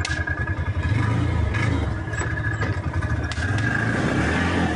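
Engine of a small motor vehicle running close by, with a rapid low firing rhythm that grows a little louder about a second in.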